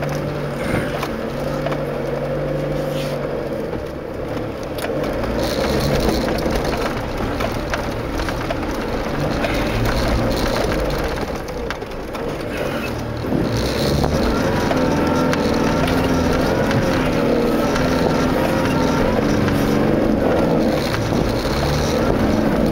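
Land Rover Discovery engine running steadily as it drives, heard from inside the cabin. Its note wavers more from about two-thirds of the way through.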